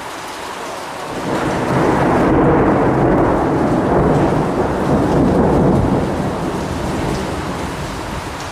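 A long roll of thunder over steady rain: the rumble builds about a second in, holds for several seconds and fades away near the end.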